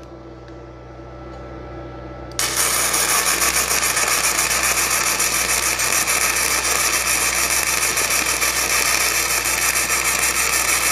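A low hum, then about two and a half seconds in a flux-core MIG welding arc strikes and crackles steadily: .030 flux-cored wire fed at a wire feed speed of 400 from a YesWelder Flux Core 135 Pro welder.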